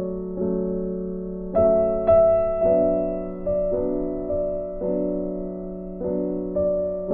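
Soft instrumental piano music: slow sustained chords, each struck and left to fade, about one a second.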